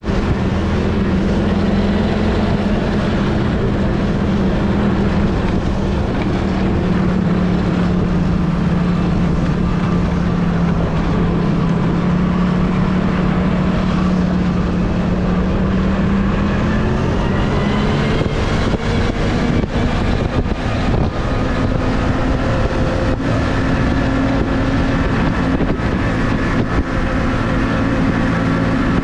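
Snowmobile engine running steadily while riding along a snowy track, a constant drone whose pitch rises about two-thirds of the way through as the machine speeds up.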